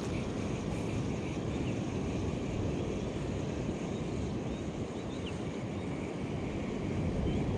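Steady wind rumble buffeting the microphone, with a few faint, short high chirps now and then.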